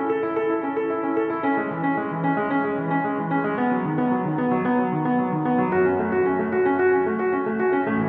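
Background piano music: a steady run of notes with no machinery to be heard.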